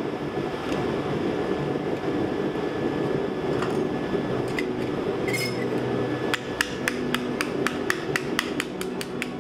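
Hand hammer striking a piece of flattened copper pipe on a steel anvil. After a few scattered clicks, a quick, even run of blows begins about six seconds in, at about four a second.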